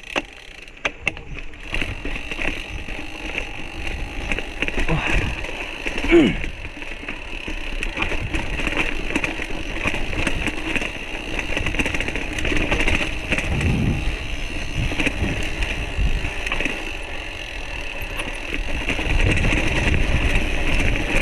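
Bicycle being ridden over uneven ground: a steady rumble of tyres with rattling and clicking from the bike.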